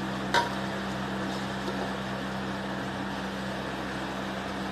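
A metal serving ladle clinks once about half a second in as curry is scooped from an aluminium pot, over a steady electrical hum and hiss.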